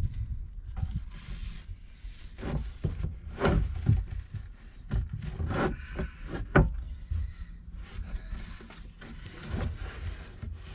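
Handling noises as a battery tie-down strap is worked around a plastic oil tank: irregular rubbing, creaks and knocks, with a few short squeaks.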